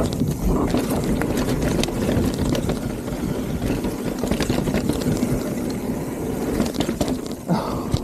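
Mountain bike descending a dirt trail at speed: tyres rolling over dirt and gravel, with scattered rattles and knocks from the bike over a heavy low rumble.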